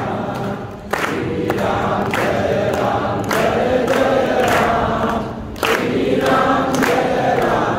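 Hindu devotional song: a chorus of voices singing over percussion strikes, with a short break in the singing about five seconds in.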